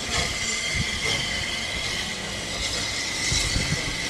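Steam locomotive hissing steadily as it moves slowly, with an uneven low rumble beneath the hiss.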